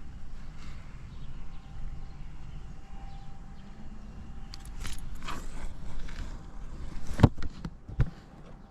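Buell XB12SS Lightning's air-cooled V-twin idling with a steady low rumble, with two sharp clicks or knocks near the end.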